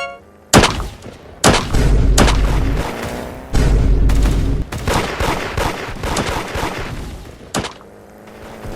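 Loud gunfire and explosion sound effects. A single sharp bang comes about half a second in, the loudest moment. It is followed by a dense barrage of shots and booms with a deep rumble under it. One more sharp bang comes near the end.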